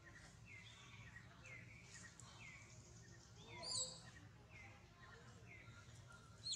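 Faint outdoor ambience with a bird repeating a short falling chirp about twice a second, and one louder, higher call a little past halfway.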